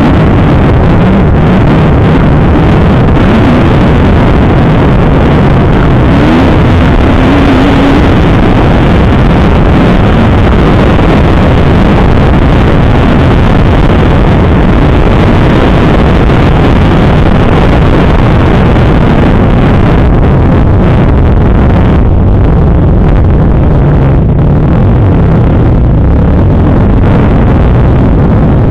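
Kawasaki KX250F dirt bike's single-cylinder four-stroke engine, loud, revving up and down as the bike is ridden hard.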